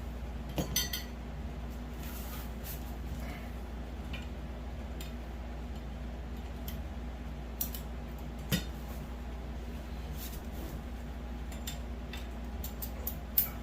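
Grow tent frame poles clinking and knocking now and then as they are handled and pushed into plastic corner connectors, over a steady low hum.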